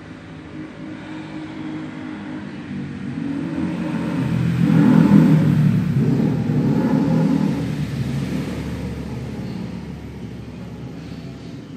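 A motor vehicle passing by, its engine rumble growing louder to a peak about five seconds in and then fading away.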